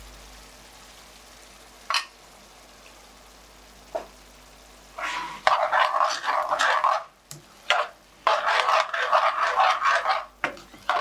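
Chicken shashlik pieces in their red sauce sizzling in a stainless steel frying pan as a large metal spoon stirs them, with a little water just added. After a couple of sharp clicks of the spoon on the pan, the stirring turns into loud bursts of sizzling and scraping from about five seconds in.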